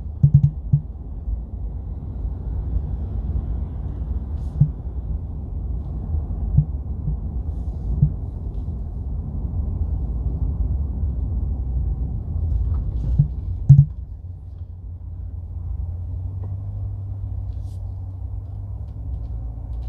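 Low, steady rumble of a car heard from inside the cabin while driving, with a few low thumps. About two thirds of the way through it drops to a quieter, steadier hum.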